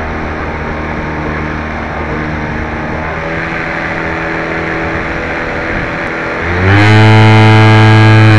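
Radio-controlled model airplane's motor running steadily, heard from a camera on board the plane. About six and a half seconds in the throttle opens: the pitch rises and it gets much louder, holding there.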